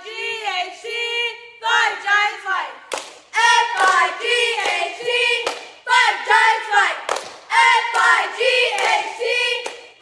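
A small squad of female cheerleaders chanting a cheer in unison, spelling out F-I-G-H-T and shouting 'Fight, Giants, fight' in short rhythmic phrases, with a few sharp claps between the lines.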